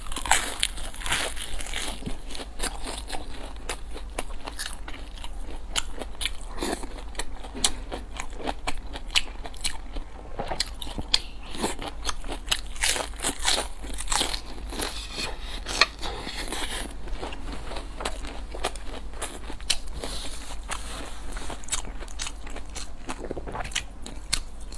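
Close-miked eating sounds for ASMR: repeated crisp, crunchy bites and wet chewing that crackle throughout.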